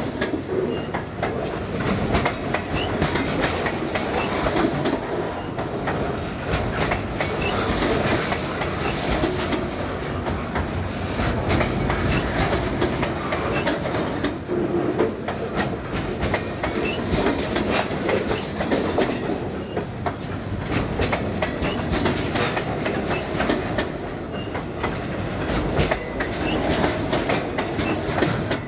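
Loaded freight flatcars rolling past: steel wheels running over the rails with a steady rumble and a rapid, irregular clickety-clack, with a few brief faint wheel squeals.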